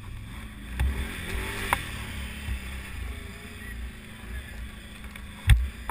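Can-Am 800 ATV's V-twin engine running slowly with a steady low rumble, punctuated by a few sharp knocks, the loudest near the end.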